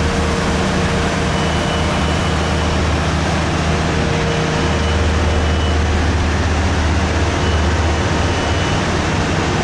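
A steady low engine drone under an even rushing noise, the drone swelling a little in the middle.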